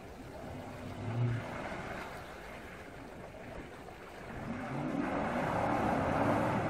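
SUV engine revving while its wheels spin and churn the water, the vehicle hung up on a bump in deep water and unable to get off it. The revs and the splashing rise about halfway through.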